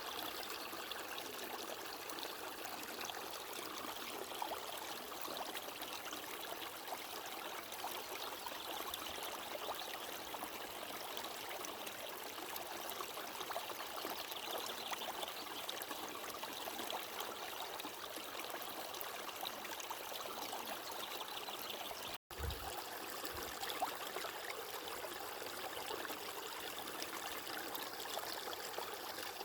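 Steady running water flowing without a break, except for a momentary cut-out about three quarters of the way through, followed by a brief low thump.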